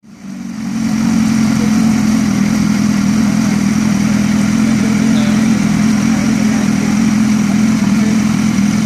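BMW S1000RR sportbike's inline-four engine idling steadily, fading in over the first second and then holding an even pitch.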